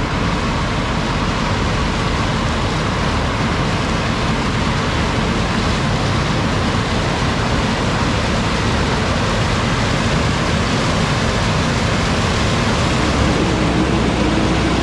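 Heavy harvest machinery running steadily: a loud, even wash of engine and mechanical noise with no breaks.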